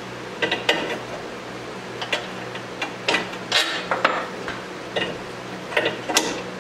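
Irregular metal clicks and clanks from handling and adjusting the parts of a small bench belt and disc sander, over a steady low hum.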